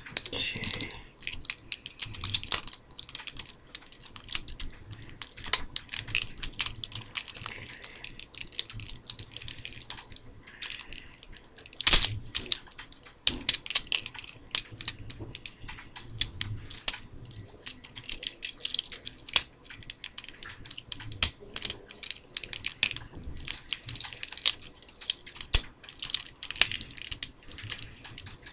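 Hard plastic parts of a Generations War for Cybertron Optimus Prime figure clicking and snapping as it is transformed by hand. The clicks are many and irregular, with one sharper, louder snap about twelve seconds in.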